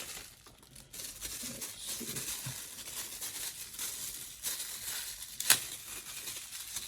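Plastic packaging rustling and crinkling as it is handled, with one sharp click about five and a half seconds in.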